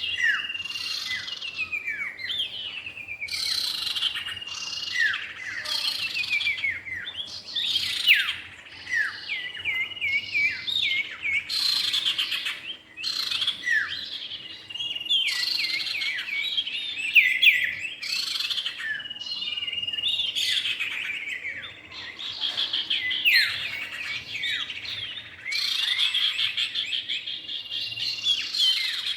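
Common iora (cipow) male and female singing: a dense, continuous stream of quick chirps, downslurred whistles and trills with only brief pauses.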